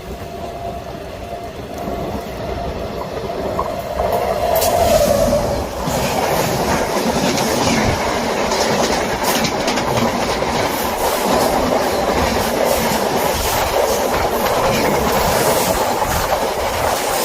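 A passenger train passing at speed on Indian Railways track. It builds over the first few seconds, then from about six seconds in becomes a loud, steady rush with a rapid clatter of wheels over the rail joints.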